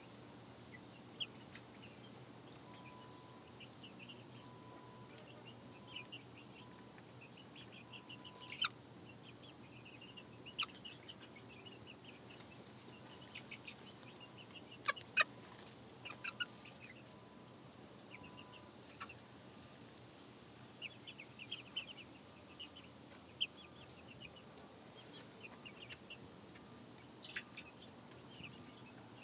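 A flock of five-to-seven-week-old pullets softly peeping and chirping, with a few sharp taps now and then.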